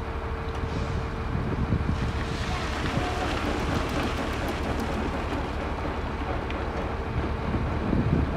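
A machine running with a steady hum and low rumble, with wind buffeting the microphone.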